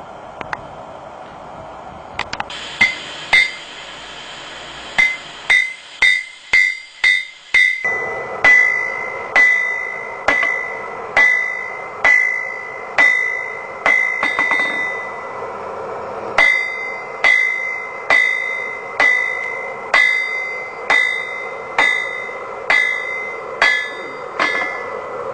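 Blacksmith's hammer striking hot metal on an anvil, each blow giving a clear, high ring. After a few scattered blows comes a quick run of about two a second, then steady blows a little under one a second, with a steady hum underneath.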